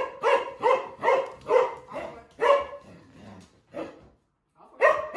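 Dog barking in a quick series of short barks, about two to three a second, with a pause of about a second near the end before the barking starts again.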